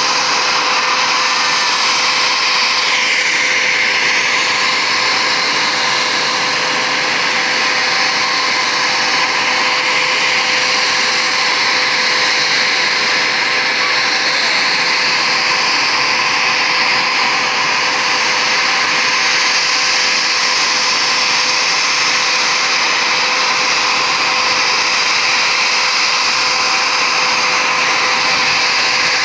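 Bombardier Global Express business jet's twin Rolls-Royce BR710 turbofans at taxi idle: a loud, steady jet whine and rush with a constant hum underneath.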